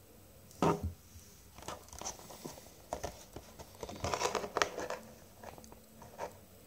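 Stiff clear plastic blister packaging handled and turned over in the hands: a loud crackle about half a second in, then scattered crinkles and clicks, with a denser run of crackling about four seconds in.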